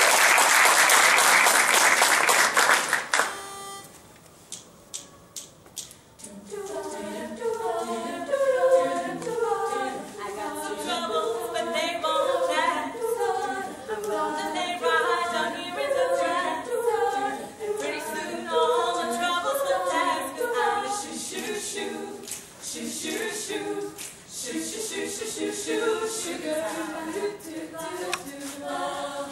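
A loud burst of applause that stops about three seconds in, a few sharp clicks, then, from about six seconds in, a group of women singing a cappella in harmony, with sharp hits keeping a beat.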